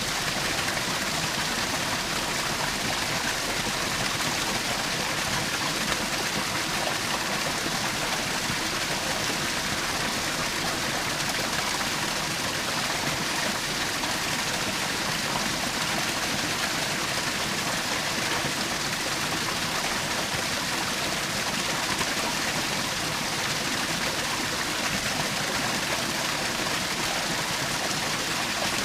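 Small forest waterfall splashing and rushing: a steady, even hiss of falling water.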